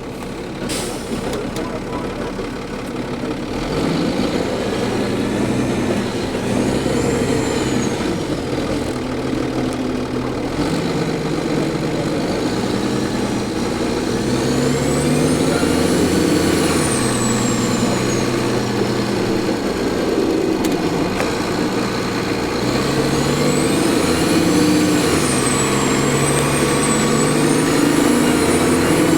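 A Cummins ISL diesel engine in a New Flyer D40LF transit bus pulls away and accelerates, its pitch climbing and dropping in steps as the ZF Ecomat automatic transmission shifts. A high turbocharger whine rises and falls over it twice, the second time near the end.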